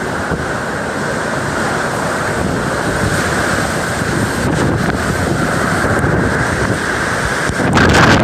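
Typhoon wind and rain, the gusts buffeting the microphone in a loud, steady rumble that grows louder near the end.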